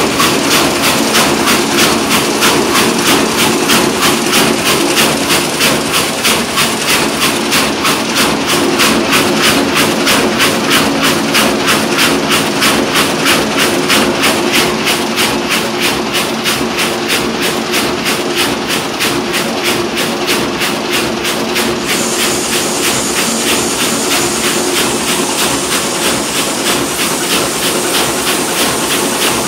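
Van de Wiele VTR33 carpet weaving loom running at speed: a loud, fast, even clatter, several strikes a second, as the weft is inserted and beaten up each pick.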